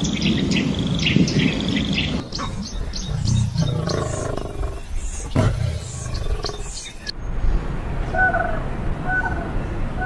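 Wild animal sounds: birds chirping over low growls. About seven seconds in, the sound changes to a bird giving a few short, spaced calls.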